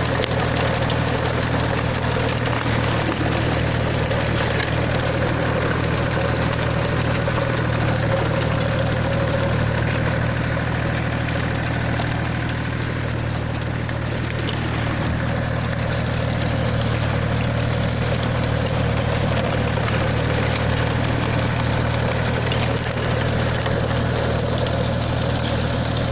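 Tractor engine running steadily, a low even hum that eases slightly for a few seconds around the middle.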